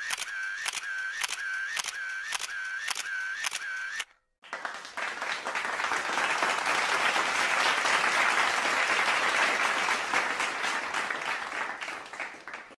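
Camera shutter firing repeatedly, about two clicks a second, for the first four seconds. After a brief gap, a crowd applauding, swelling and then fading away near the end.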